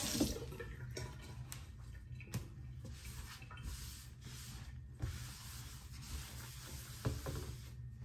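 Low, steady room hum with a few soft knocks and rustles of objects being handled on a bathroom counter. A faint hiss of running water fades out in the first half-second.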